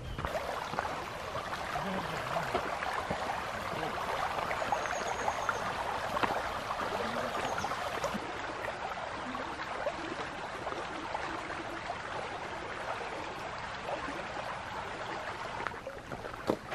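Water running steadily along a narrow canal, an even rushing with fine trickling. It starts abruptly and gives way to scattered clicks near the end.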